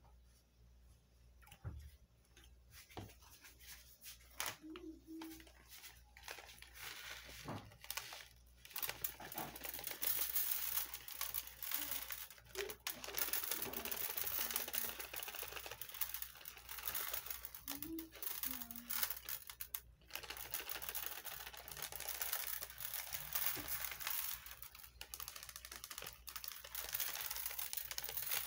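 Coloured sugar sprinkles pattering onto chocolate-glazed donuts and an aluminium baking tray, with the plastic packet crinkling, a dense fine rattle that sets in about a third of the way through. Before it come a few light knocks and scrapes.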